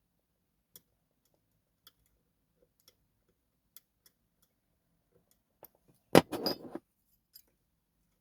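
Faint, scattered single clicks from a pick and tension wrench working the pins of a TESA T60 dimple lock. About six seconds in comes a louder rapid burst of clicking and rattling that lasts under a second.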